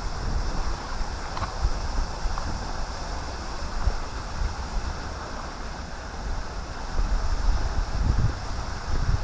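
Wind buffeting the microphone: a gusting low rumble over a steady rushing hiss, heavier near the start and again near the end.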